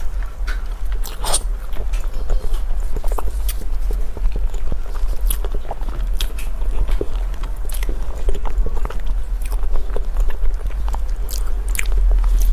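Close-up chewing and biting of crunchy food, a quick irregular run of crunches and clicks, over a steady low hum.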